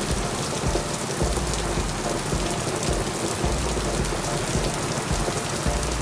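Heavy rain falling: a dense, steady hiss of drops, with a low rumble underneath that comes and goes.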